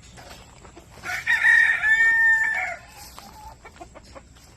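A rooster crowing once, one long call of nearly two seconds starting about a second in.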